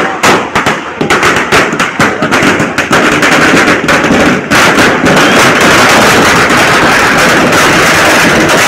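A long string of firecrackers laid on the ground going off in rapid, loud bangs. The bangs come faster and faster until, about halfway through, they merge into one continuous crackle.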